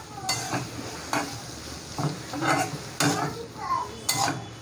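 Sliced onions sizzling in hot oil in a kadai while being stirred to brown them, with a metal spatula scraping and knocking against the pan about once a second.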